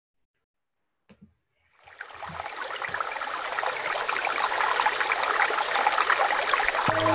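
Recorded sound of running water, like a flowing stream, fading in after a moment of silence and growing steadily louder. Near the end, a few steady held tones come in on top as meditative music begins.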